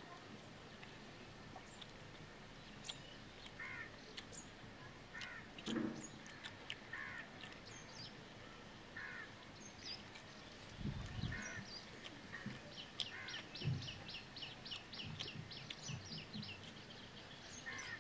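Crows cawing repeatedly, one short call every second or two, with a fast run of high ticks about thirteen seconds in and a couple of low thumps in between.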